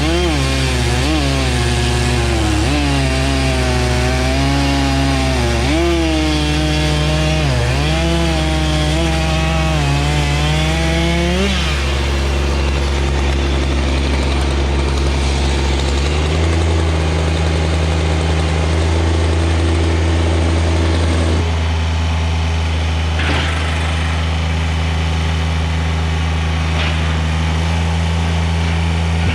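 Kubota BX24 compact tractor's small three-cylinder diesel engine running at high revs, its note wavering as the loader works under load, then settling to a different steady drone about 16 seconds in.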